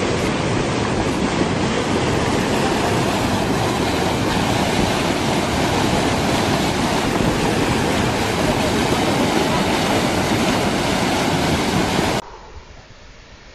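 Steady rushing noise of a muddy flash flood, a grey torrent of water laden with sand and rock, surging down a channel. It cuts off abruptly about twelve seconds in to a much quieter background.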